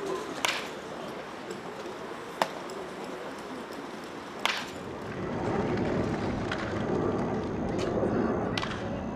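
Baseball bat hitting pitched balls in batting practice: three sharp cracks about two seconds apart, then a few fainter ones near the end, over a steady rumble of outdoor noise that grows louder about halfway through.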